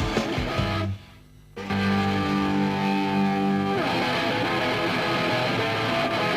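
Rock music led by electric guitar. It cuts out for about half a second about a second in, then comes back with long held notes before playing on.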